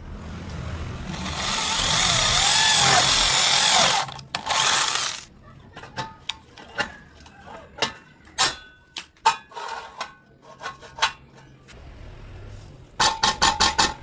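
A power tool runs loudly for about four seconds, followed by a shorter burst. Then comes a series of separate sharp knocks on metal, ending in a quick run of strikes.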